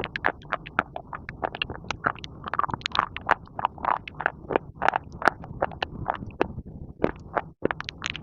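Pieces of baked clay being bitten and chewed close to the microphone: rapid dry crunches, about five a second.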